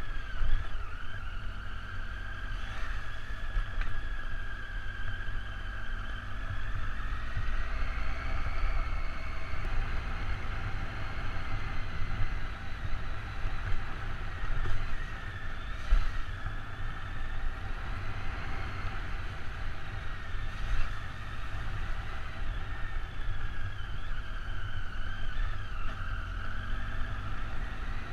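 Triumph Tiger motorcycle engine running on a rough dirt track, its pitch drifting up and down as the revs change, under a heavy low rumble of wind on the helmet microphone. A few sharp knocks come from bumps in the track, the loudest about halfway through.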